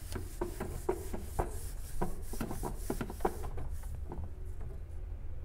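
Fluffy duster brush, its spinning motor off, rubbed by hand along window-blind slats. The slats give irregular light clicks and rattles that thin out after about three seconds.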